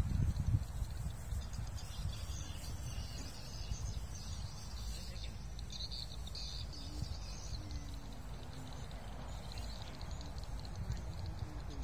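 Outdoor lakeshore ambience: a low, uneven rumble of wind on the microphone, with faint bird chirps high above it.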